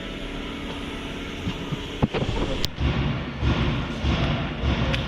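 Mercedes Sprinter 412's diesel engine running with a steady hum, the van in for a loud engine noise. A couple of sharp clicks come about two seconds in, then a louder, uneven low pulsing for the rest.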